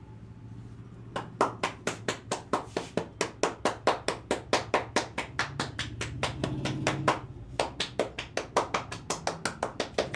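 Rhythmic clapping-style percussion strokes of a head massage, hands striking the head about four times a second. The strikes break off briefly a little after seven seconds in, then resume.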